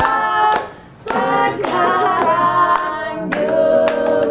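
A group singing together to steady hand clapping, about two claps a second, with a short break in the singing a little under a second in.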